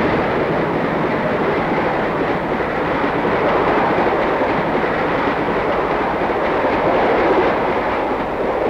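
Streamlined passenger train rushing past close by: a loud, steady noise of wheels on the rails and the cars going by, fading just as the last cars pass.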